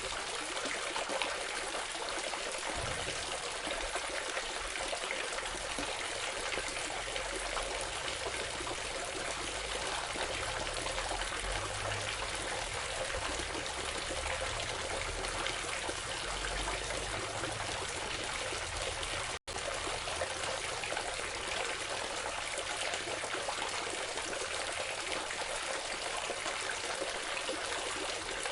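Water fountain running, water trickling and falling steadily, with a split-second gap about two-thirds of the way through.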